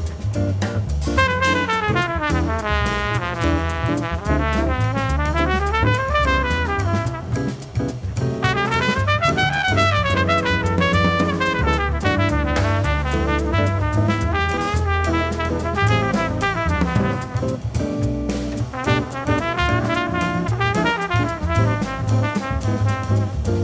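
Modal jazz ensemble recording: a horn plays a flowing melodic solo line, running up and down in fast phrases, over electric bass and drum kit.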